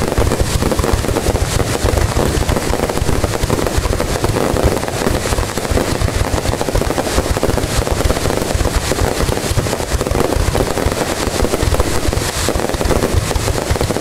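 Fireworks display: a dense, continuous barrage of shell bursts and crackle, going on without a break.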